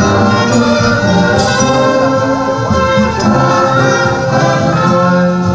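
Music with sustained instrumental notes and singing.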